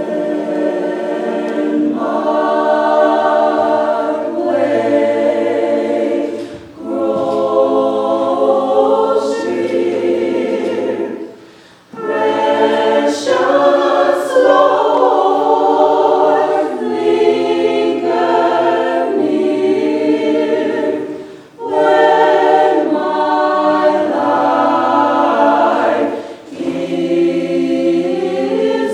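A choir singing a hymn in long sustained phrases, with short pauses between phrases about 7, 12, 21 and 26 seconds in.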